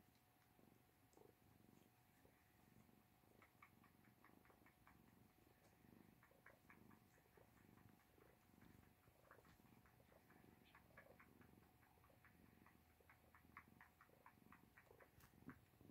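Faint purring from an Oriental mother cat and her nursing kittens, a soft low pulsing. Runs of quick faint clicks come and go several times.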